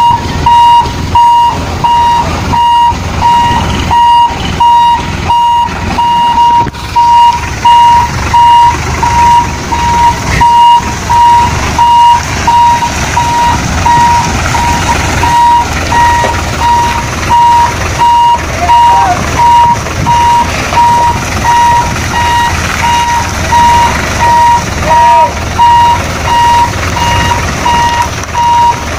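Reversing alarm of a Hino FG 235 TH tractor unit beeping steadily, one high beep roughly every three-quarters of a second, over the truck's diesel engine running.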